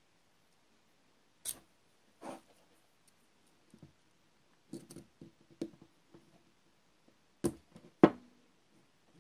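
Small metal hand tools clicking and clinking against the shaft end of a brass hand vacuum pump as the locking piece that holds the trigger is picked and pried at. The clicks are scattered and irregular, with the two loudest about seven and a half and eight seconds in.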